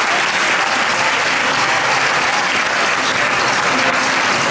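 Audience and choir members applauding: dense, steady clapping greeting a musician's introduction.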